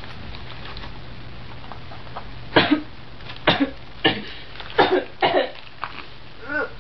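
A person coughing, about five short coughs in a row, then a brief voiced sound near the end. A steady low hum runs underneath.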